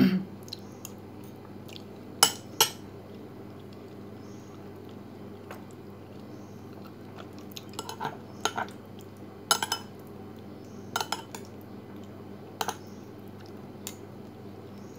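Metal spoon clinking and scraping against a ceramic bowl while macaroni salad is scooped up. Scattered sharp clinks, the loudest a close pair about two seconds in, over a steady low hum.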